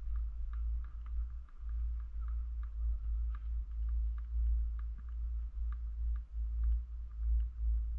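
Wind buffeting the microphone on a moving chairlift chair: a low, uneven rumble that swells and drops, with scattered light clicks over it.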